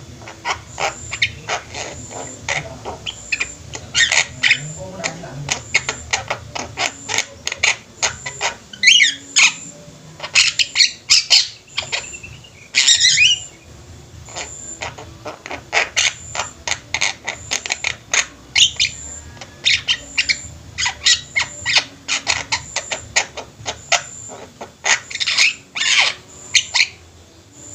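A group of Javan mynas calling together: a busy run of sharp clicks and chirps, with harsh, squawking calls about nine and thirteen seconds in.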